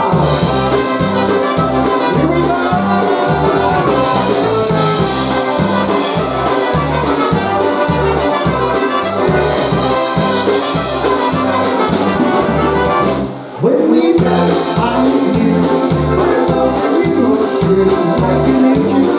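Live polka band music with a steady, driving bass beat and brass. The music drops out briefly about thirteen seconds in, then comes straight back in.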